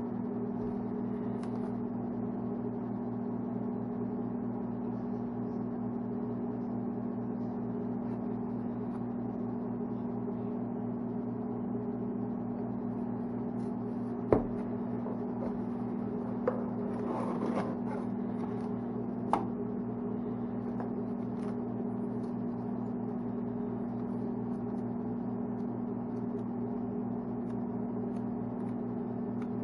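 A steady machine hum at one constant pitch, with a sharp click about halfway through and a few lighter clicks and a brief rustle soon after.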